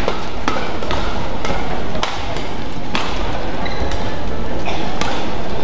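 Badminton rally: a run of sharp racket hits on the shuttlecock, about one every half second to second, over steady hall noise.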